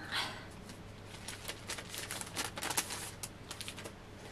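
Sheets of letter paper rustling as they are handled and leafed through: a soft swish at the start, then light, scattered rustles and ticks.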